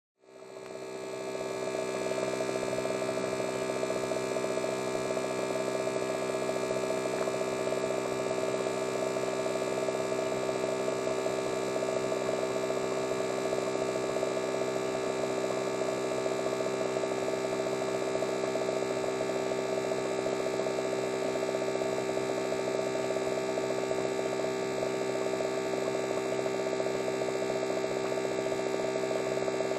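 Electric hair clippers running with a steady buzz that fades in over the first second or two, then holds at one even pitch.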